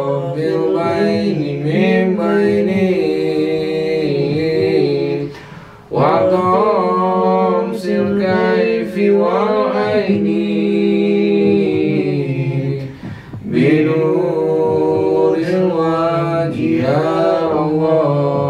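A solo male voice chanting unaccompanied in long, ornamented phrases, three of them with short pauses between.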